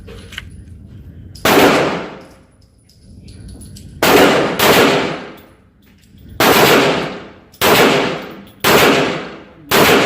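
Seven pistol shots from a Kel-Tec PMR-30 firing .22 Magnum rounds, unevenly spaced, a pair close together, each one echoing away on a lane of a shooting range.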